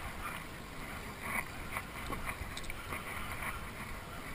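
Wind buffeting the microphone over water sloshing against a small boat's hull, a steady rumbling hiss with a few faint scattered ticks.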